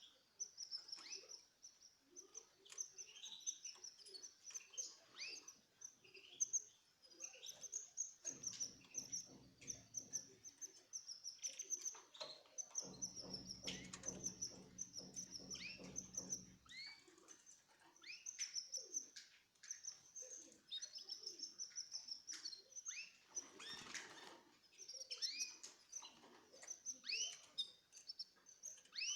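Small cage birds chirping, many short high calls in quick overlapping succession. A low hum comes in twice in the middle, for a few seconds each time.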